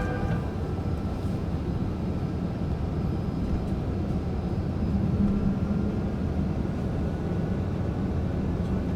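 Steady low rumble inside an airliner's passenger cabin, from the engines and the air rushing past the fuselage.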